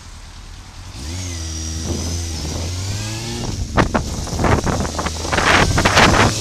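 Motorcycle engine pulling away about a second in, its pitch rising slowly as it accelerates. From about halfway through, irregular gusts of wind buffet the microphone and grow louder as speed builds.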